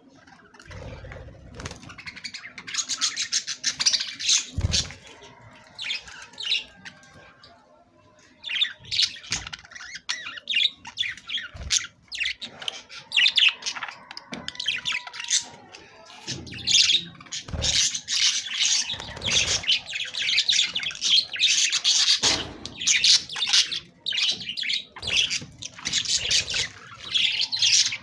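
Budgerigars chattering: rapid high chirps and squawks in bursts, with a lull about seven seconds in and a couple of low thumps.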